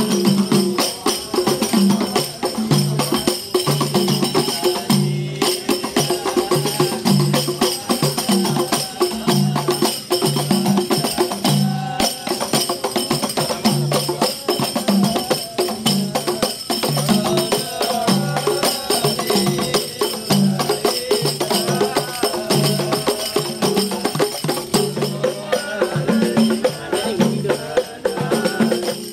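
Rebana frame drums beaten together in a steady, repeating rhythm, deeper and higher strokes alternating about two to three times a second.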